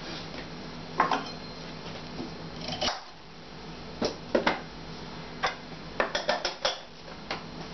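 Kitchen utensils and containers being handled: short, irregular knocks and clinks, bunched in a quick run about six seconds in, as vegetables are readied in small chunks for the juicer.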